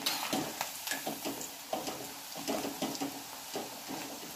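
Cornflour-coated cauliflower florets deep-frying in hot oil in a steel kadai, sizzling with many small crackles. A slotted steel spatula stirs and scrapes against the pan.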